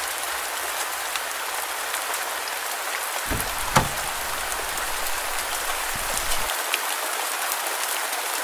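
Rain falling on pavement and a parked car: a steady hiss with scattered drop ticks. A single short thump comes a little under four seconds in.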